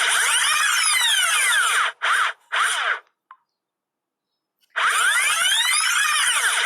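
Comedy sound effect played from a sound-effects app: a dense whirring of fast, overlapping rising and falling pitch sweeps. It breaks off about two seconds in, comes back in two short bursts, stops for about a second and a half, then starts again near the end.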